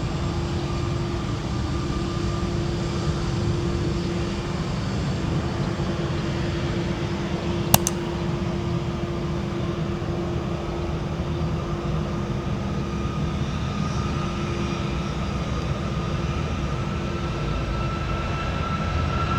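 Jet airliner engines running steadily, with a steady turbine whine that grows a little stronger in the second half. A single sharp click about eight seconds in.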